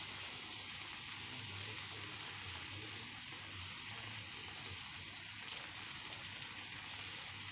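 Longganisa (Filipino pork sausages) sizzling steadily in olive oil in a frying pan, frying now that the water they were boiled in has cooked off.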